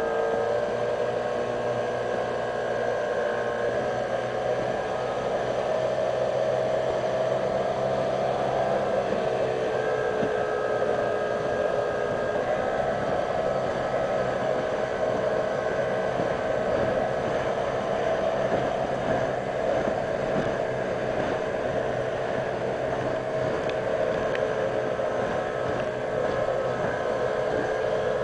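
Mercury outboard motor on a Zodiac inflatable running at speed, a steady whine that steps up in pitch about a second in, drops near nine seconds and rises again a few seconds later as the throttle changes. Underneath runs a steady rush of water and wind.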